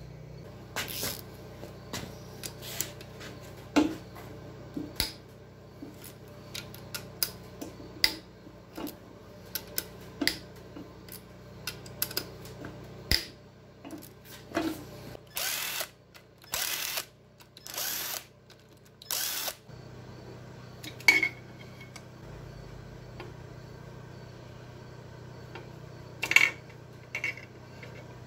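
A socket ratchet working the connecting-rod cap bolts on a bare engine block, clicking in short runs, with sharp clinks and knocks of metal parts as rod caps and pistons come off. A faint steady hum sits underneath.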